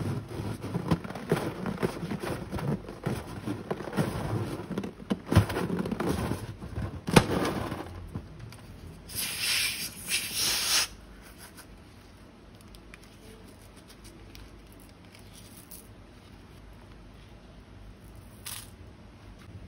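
Crinkling plastic and crackling clicks as slime, balloons and piping bags are handled for about the first eight seconds. A hiss of about two seconds follows near the middle, then only faint sounds with a single click near the end.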